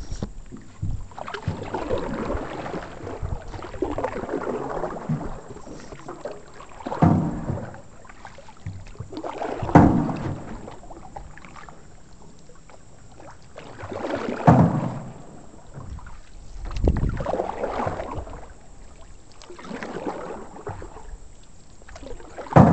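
Canoe paddles dipping and pulling through the water, a swish of water with each stroke and several louder strokes a few seconds apart.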